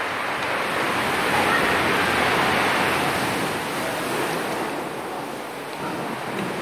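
Sea waves surging against rocks at the mouth of a sea cave, heard from inside the cave: a steady rushing that swells about a second in and eases off a little near the end.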